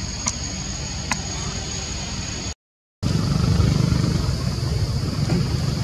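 Steady rain falling, with wind rumbling on the microphone. The sound cuts out for a moment about two and a half seconds in, then comes back with a heavier rumble.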